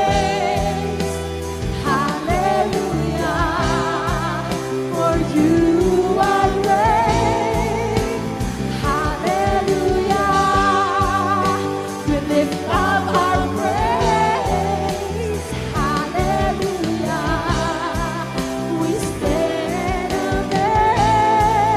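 Live worship band playing a praise song: a woman singing lead with backing singers, over an electronic drum kit, electric guitar, bass guitar and keyboard.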